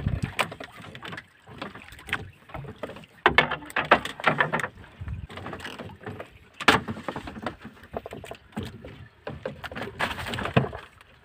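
Irregular knocks and scrapes of a fishing line and gear against a small wooden outrigger boat as the line is hauled in by hand.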